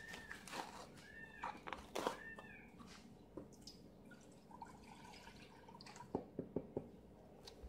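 Milk poured from a carton into an enamel saucepan, faint. There are three short tones that rise and fall in the first couple of seconds, and a few light clicks near the end.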